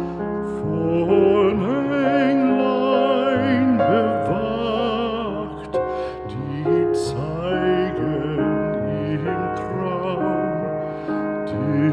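Slow background music with a voice holding long, wavering notes with vibrato over sustained accompaniment.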